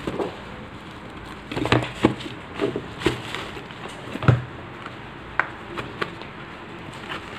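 Cardboard packing being handled: flat cardboard pieces and box flaps rustling and knocking in irregular bursts, with a dull thud about four seconds in and a few light taps after it.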